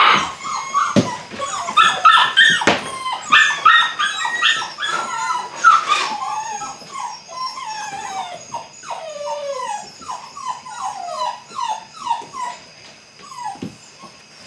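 Belgian Malinois puppies yipping and barking in rapid, high, short calls, which give way about six seconds in to wavering, high-pitched whines and whimpers. A few dull knocks come between the calls.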